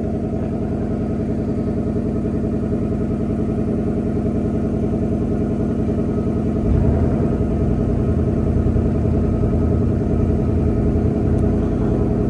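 2024 S650 Mustang GT's 5.0 L V8 with the standard, non-active exhaust, idling steadily after a cold start as the fast idle settles down. About halfway through, its low rumble grows louder.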